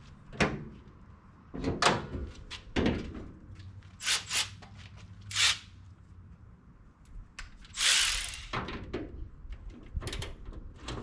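Scattered knocks and clunks of objects being handled, with a brief hiss about eight seconds in.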